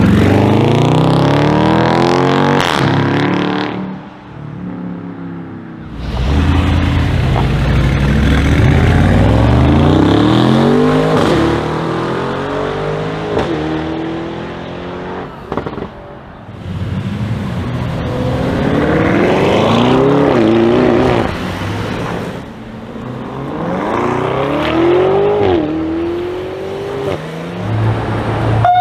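Tuned performance SUV engines accelerating hard in several separate runs, starting with a supercharged Jeep Grand Cherokee Trackhawk. In each run the revs climb and then drop back at gear changes, with short lulls between the runs.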